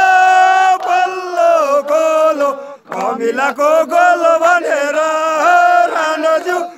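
Men's voices chanting a victory song, loud and close. It opens on a long held note, breaks off briefly about three seconds in, then carries on in rising and falling phrases.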